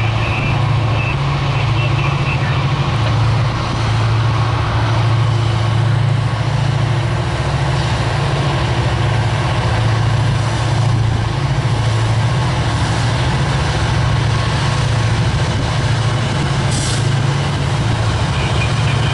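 Loaded coal hopper train rolling past, its wheels on the rails over a steady low diesel drone from the Norfolk Southern helper locomotives pushing at the rear as they draw near.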